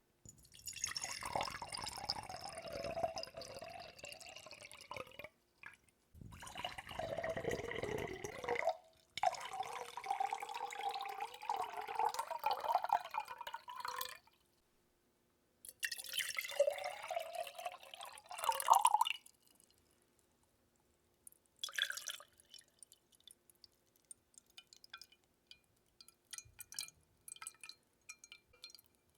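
Water poured or trickled in four runs of a few seconds each with short pauses between, followed by scattered drips for the last several seconds.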